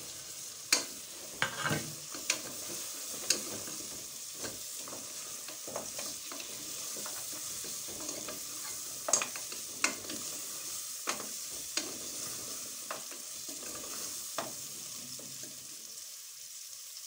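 Goat trotters sizzling as they fry in onion-and-spice masala in a steel pot, while a metal spoon stirs them and knocks and scrapes against the pot now and then.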